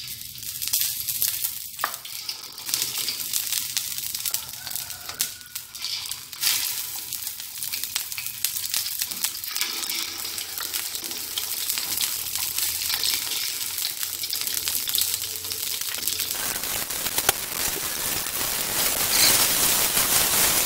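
Whole fish sizzling in hot oil in a stainless steel wok as they are laid in, a steady frying hiss with a sharp click about two seconds in. The hiss grows louder and fuller near the end as the pan fills and the oil bubbles hard around the fish.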